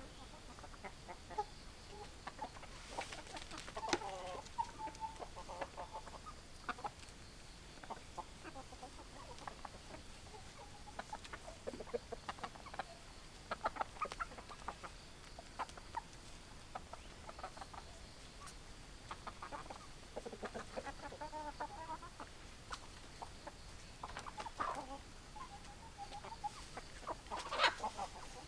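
Hens clucking, with many short irregular clucks and a few longer, drawn-out pitched calls.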